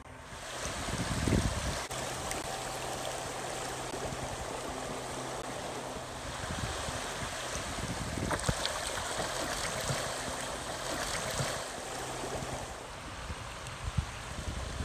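Muddy floodwater rushing and swirling past a kayak on a river in flood, a steady dense hiss of moving water with boils and whirlpools churning the surface.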